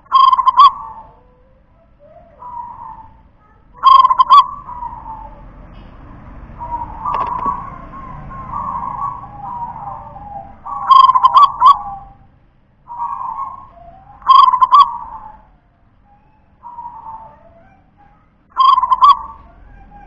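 Zebra dove (perkutut) cooing: five loud, short staccato phrases at irregular intervals, with softer cooing between them.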